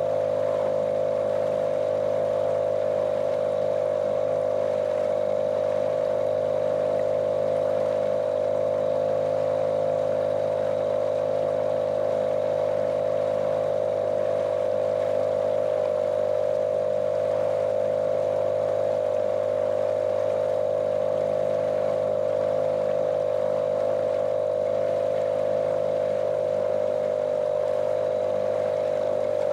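Small motorboat's outboard engine running at a steady speed, a monotonous drone with the hiss of water along the hull.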